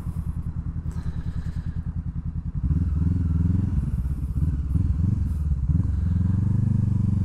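Honda CBR500R parallel-twin engine and exhaust running at low revs with an even pulse, then louder from about three seconds in as the throttle opens, the pitch rising and falling with the throttle.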